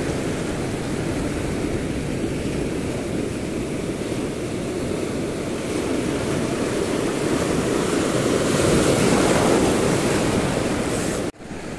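Surf washing on the shore with wind on the microphone, swelling about two-thirds of the way through and then dropping off abruptly near the end.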